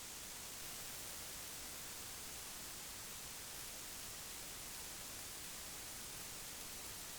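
Steady electronic hiss, even and unchanging, with no motor or other sound in it: the empty audio track of an FPV goggles' video recorder.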